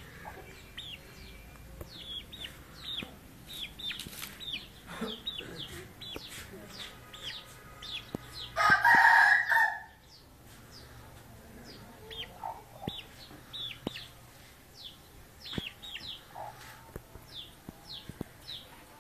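A rooster crows once, loudly, for just over a second about halfway through. Small birds keep up short, high chirps throughout.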